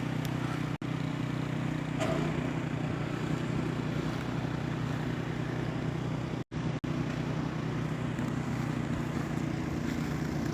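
A steady low engine hum, like a vehicle running, with the audio cutting out completely for an instant about a second in and again near two-thirds of the way through.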